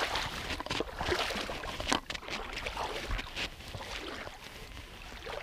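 Fishing line being hauled in hand over hand out of the water: a jumble of water noise, rustling and short clicks right at an action camera held in the teeth. Louder at first, then quieter.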